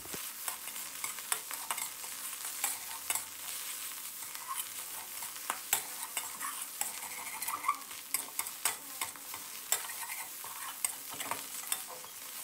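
Metal spatula scraping and clicking against a stainless steel wok as crumbled scrambled eggs are stir-fried and tossed with seasoning, over a light sizzle of hot oil.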